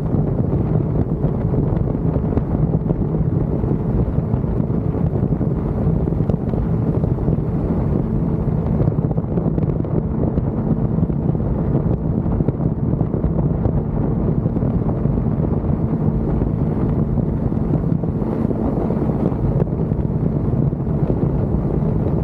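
Suzuki Inazuma motorcycle on its stock exhaust, cruising with a steady engine note, with wind rushing over the microphone.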